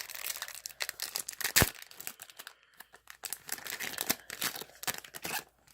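A foil trading-card pack wrapper being torn open and crinkled, with dense crackling and a sharp loud crackle about a second and a half in.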